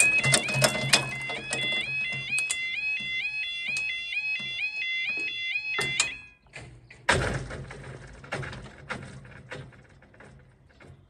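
Level crossing alarm sounding its rapid stepped, warbling yodel tone, which cuts off abruptly about six seconds in. About a second later a louder clattering rush starts and fades away over the remaining seconds.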